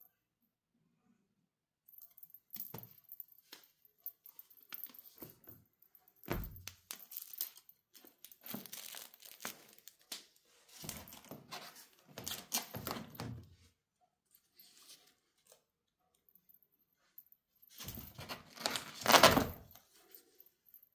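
A cat playing with a crinkly toy makes rustling and crinkling noises in irregular bursts, with a pause and then the loudest burst near the end.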